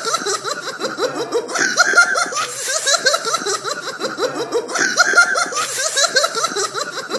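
Comic laughing sound effect: rapid, choppy giggles looped over and over, the same pattern repeating every few seconds.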